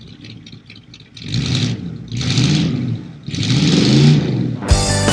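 Car engine idling with a light tick, then revved three times, each rev rising and falling in pitch. A rock band's music comes in suddenly near the end.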